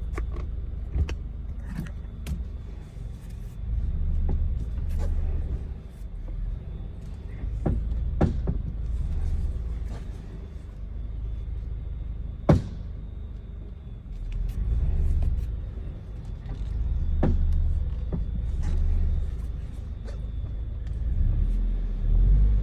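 Low rumble of a Subaru BRZ manoeuvring at steering near full lock, with a few sharp knocks or clicks from the front end, the loudest about twelve seconds in. This is the weird noise the owner hears only near full lock on a completely stock car.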